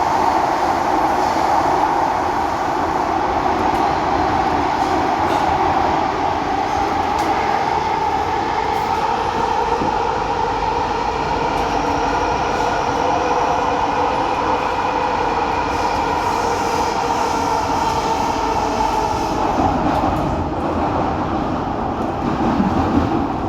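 Noisy train ride heard from aboard: the steady running noise of a moving train, with a droning tone over the rumble and a few faint clicks. The sound shifts a little near the end.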